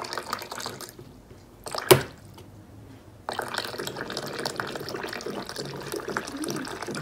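Water running and splashing from a Midea water dispenser's push-lever tap as a cat presses it with a paw. A short spell of running water at the start, a sharp click about two seconds in, then water runs steadily from about three seconds in.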